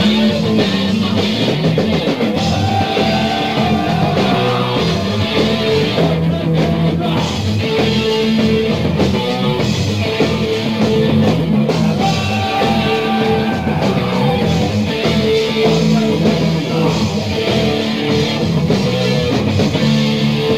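Heavy metal band playing live, with distorted electric guitar, bass and drums, heard on a rough audience tape recording.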